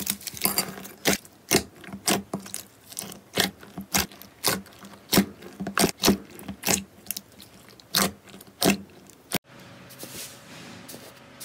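Thick slime with foam beads being kneaded and poked by hand, giving sharp, wet clicking pops about twice a second. The pops cut off suddenly near the end, leaving a much fainter soft rustle.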